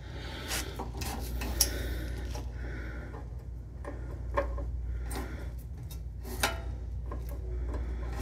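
Scattered light clicks and metallic taps as hands work the throttle and governor linkage on the carburetor of a stopped Subaru Robin SP170 engine, over a steady low background hum.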